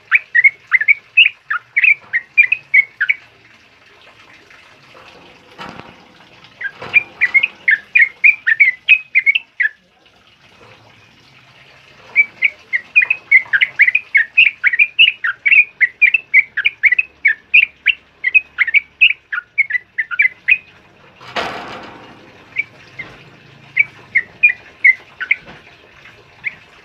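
Caged yellow-vented bulbul (trucukan) singing a fast, dense chattering song of quick bubbly notes, about four a second, in four bouts broken by short pauses. A brief burst of noise about 21 seconds in is louder than the song.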